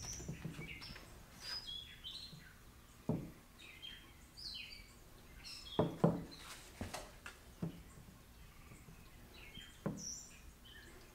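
Small birds chirping in short, scattered calls, with a few light knocks, the loudest about three, six and ten seconds in.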